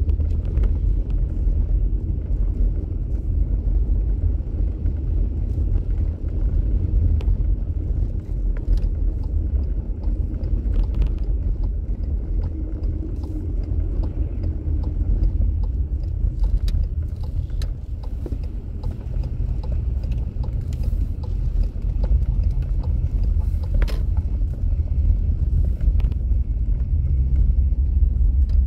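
A car driving, heard from inside the cabin: a steady low rumble of engine and tyres, with scattered light clicks.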